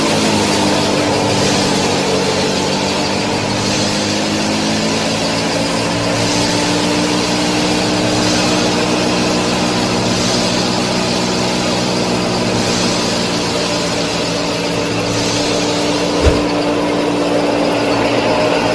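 Mini tractor's motor running steadily, its pitch wavering slightly, with a single knock about 16 seconds in.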